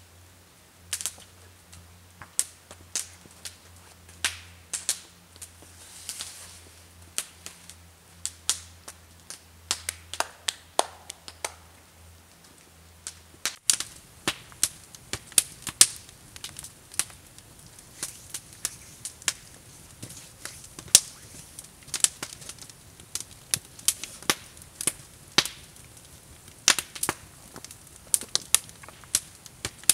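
Wood campfire crackling, with sharp irregular pops several times a second.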